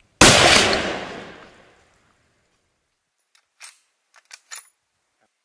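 A single rifle shot from a scoped hunting rifle, its report echoing and dying away over about a second and a half. A few short, sharp clicks follow about three and a half seconds in.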